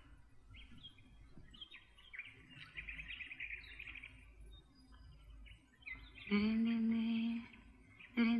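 Birds chirping and twittering on a film soundtrack played over the hall's speakers. About six seconds in, a steady held note lasting about a second cuts in, and it starts again near the end.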